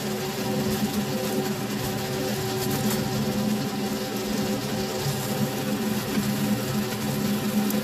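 New York strip steak searing in butter with garlic in a frying pan: a steady sizzle with small pops and crackles, over a constant low mechanical hum.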